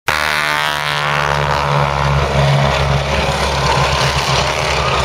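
Piston engine of a Boeing Stearman biplane flying past, with its engine pitch falling over the first couple of seconds as it goes by, then a steady rough drone.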